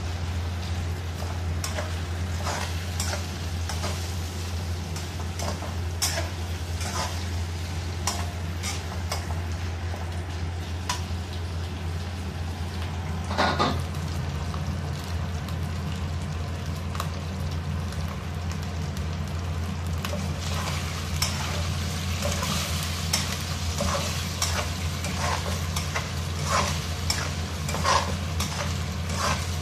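Meat sizzling as it stir-fries in a steel wok, with a spatula stirring and scraping it and knocking against the pan in short clicks that come more often in the last third. A steady low hum runs underneath.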